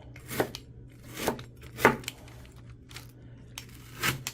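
Pizza cutter wheel rolling through a chilled slab of chocolate, peanut butter and crisped-rice cereal: four short crunching cuts, the last near the end.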